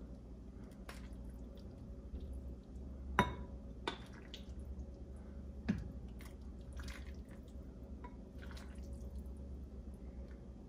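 Soup being ladled from a glass pot into a ceramic bowl: broth pouring and dripping, with a few sharp clinks of the ladle against the pot, the loudest about three seconds in. A low steady hum runs underneath.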